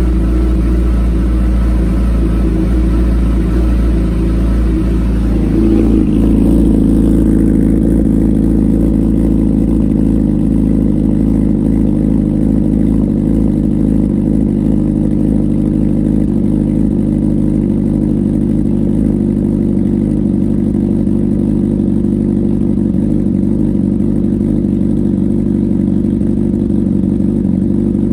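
Honda CBR1000RR inline-four engine idling steadily at a fast cold-start idle of about 1,700 rpm through an SC Project CRT carbon slip-on muffler. The sound gets louder and fuller about six seconds in.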